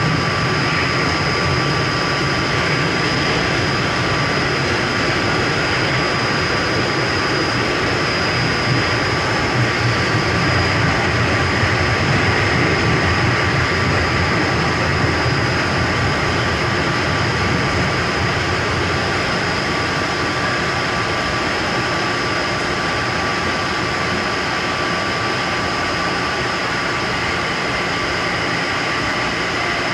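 São Paulo Metrô Fleet J subway train running at speed through a tunnel, heard from inside the car: a loud, steady rumble of wheels on rail with a steady high whine over it.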